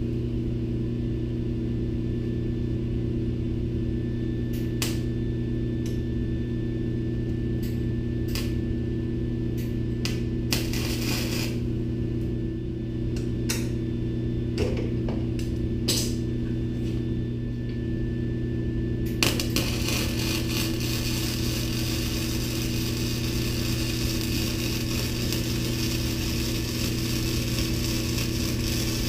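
Wire-feed (MIG) welder welding steel angle-iron brackets. A steady low hum runs underneath, with scattered clicks and a short crackle in the first part. About two-thirds of the way in, a continuous weld starts: an even frying crackle from the arc that lasts to the end.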